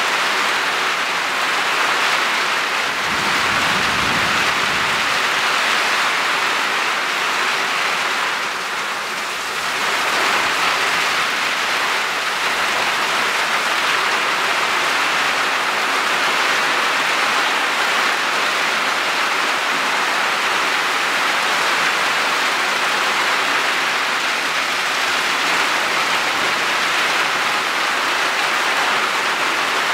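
Heavy downpour: steady, dense rain pouring onto the garden and trees, with a brief low rumble about four seconds in.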